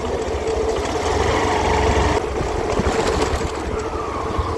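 Motorcycle engine running while riding along a road, with road and air noise; the higher part of the noise drops away suddenly about two seconds in.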